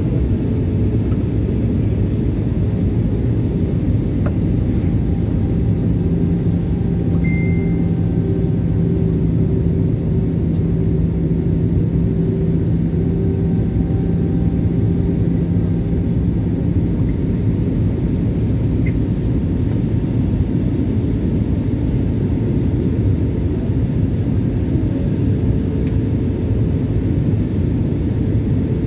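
Steady cabin noise of an Airbus A320 in flight, heard inside the cabin at the window seat: a low rumble of engines and airflow. A steady low hum sits over it through the middle.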